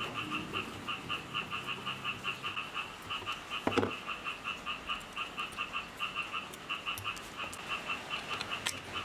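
A frog calling in the background, a steady run of short croaks about five a second. Over it are faint clicks and, a little before the middle, one brief scrape of a screwdriver and hands working on the circular saw's handle housing.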